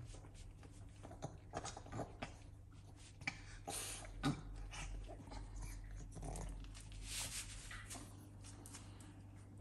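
Faint sounds of young animals stirring in a pet bed: soft animal noises among scattered light clicks and rustles, with two short hissy rustles about four and seven seconds in.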